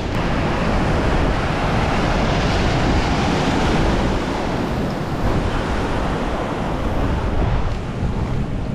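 Ocean surf washing in, with wind buffeting the microphone in a heavy, fluttering rumble; the wash swells in the first few seconds and eases off near the end.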